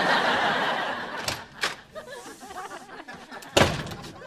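Studio audience laughing, fading over the first two seconds, with a couple of sharp clicks; then a door slams shut once, loudly, about three and a half seconds in.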